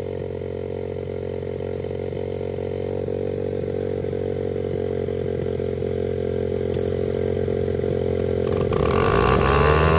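Small dirt bike engine idling steadily, slowly growing louder. Near the end a louder engine note joins, revs up and settles at a higher pitch.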